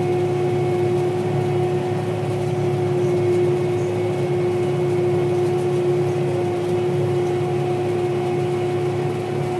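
Gleaner R72 combine running steadily while harvesting, heard from inside the cab: an even machine drone with a steady hum tone over a low rumble.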